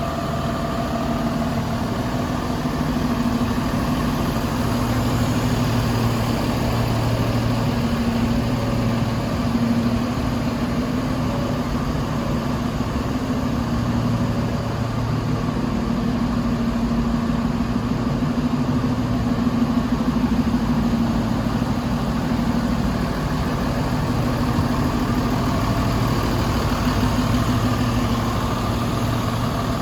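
DAF LF220's turbocharged diesel engine idling steadily, a low even rumble with no revving.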